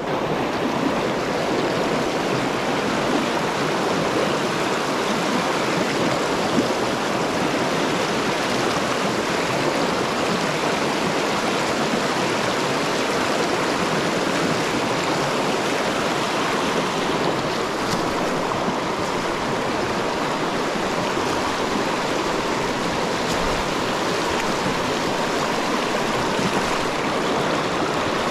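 Fast, shallow trout stream rushing over rocks in a riffle: a steady, close rush of water.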